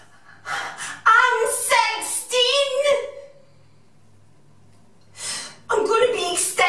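A young woman sobbing and wailing, with ragged, gasping breaths. The crying breaks off into a short lull about three seconds in, then starts again near the end.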